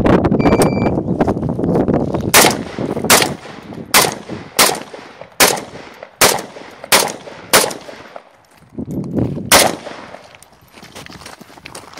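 An electronic shot-timer beep, then a Sako RK 95 rifle in 7.62×39 mm firing single shots, eight of them about three-quarters of a second apart and a ninth after a short pause. Footsteps crunch on gravel near the end as the shooter runs to the next position.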